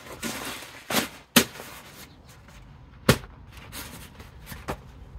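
A rice-filled fabric rest bag being pressed and shaped by hand, rustling, with three sharp knocks from an air rifle being handled and set on it. The knocks come about a second in, just after, and near three seconds in; the last is the loudest.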